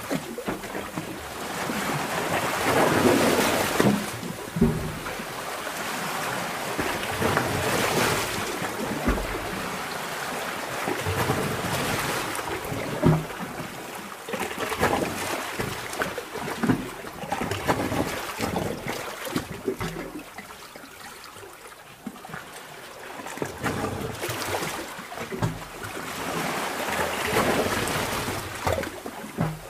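Sea water surging in a sea cave: washes of water noise swell and fade every few seconds, with small gurgles and knocks between them. It goes quieter for a few seconds past the middle.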